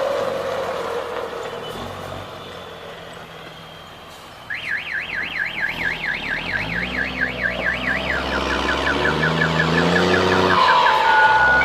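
A passing truck fades away, then a warbling siren-like horn starts suddenly, swinging up and down about five times a second, and after a few seconds trails off into a faster, fainter warble. Underneath it a truck engine comes up, its pitch rising.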